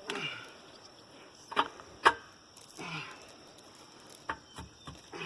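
Sharp metal knocks while dual-wheel clamps and bolts are fitted to a tractor wheel: two loud strikes about half a second apart near the middle, then three lighter knocks near the end.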